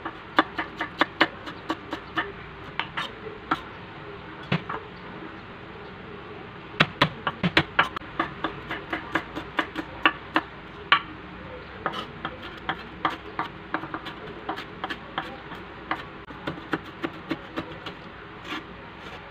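Kitchen cleaver chopping shallots and garlic on a wooden cutting board: quick, uneven knife strikes, several a second, mincing them finely. The chopping pauses briefly twice.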